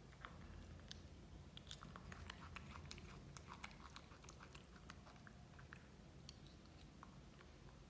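Faint chewing and biting by a baby macaque eating small pieces of food: quick soft mouth clicks and smacks, most frequent in the first half.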